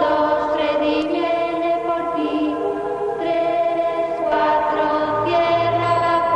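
Background music: a choir singing long held notes in chords, with a low bass note coming in about five seconds in.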